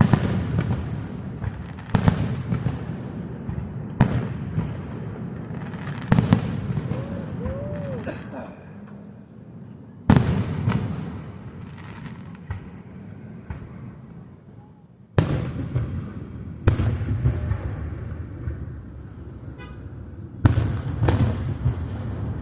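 Aerial fireworks shells bursting: about nine loud booms at uneven gaps, each trailing off in a long echoing decay, with faint crackling after a couple of them.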